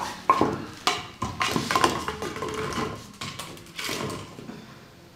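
Empty plastic water bottle clattering and knocking on a wooden floor as a puppy bats and bites at it: a quick run of irregular hollow knocks, with a second cluster about four seconds in.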